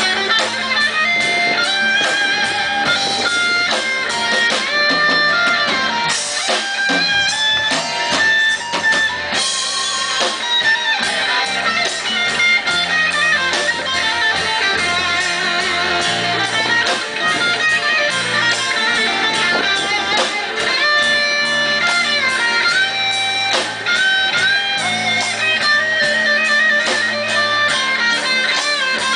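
Live band playing an instrumental number with electric guitars, bass and drums, the melody moving continuously over a steady beat.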